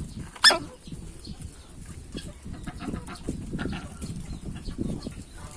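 Hen choking with a hiccup-like gulp: one sharp, loud hiccup about half a second in, then softer clucking sounds. The uploader puts the choking down to the hen eating too greedily.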